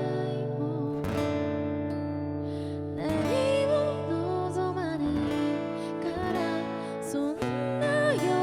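Guitar chords ringing and strummed, with a young woman's voice singing a melody over them from about three seconds in.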